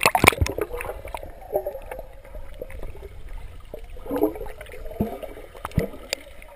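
Splash as the camera goes under the swimming pool's surface, then muffled underwater gurgling and bubbling from a child swimming, with scattered small knocks.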